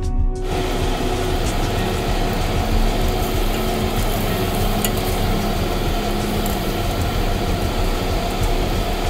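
Bone-in ribeye steaks sizzling on a charcoal grill grate over open flames: a steady, dense sizzle that starts suddenly about half a second in.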